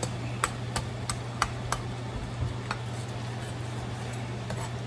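Metal ladle clinking against a stainless steel pan as tiger prawns are pushed around in it: a run of sharp clinks, about three a second, in the first two seconds, then a few softer ones. A steady low hum runs underneath.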